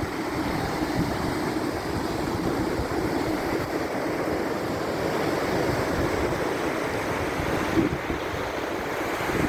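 Atlantic surf breaking and washing up the beach in a steady rush, with wind rumbling on the microphone.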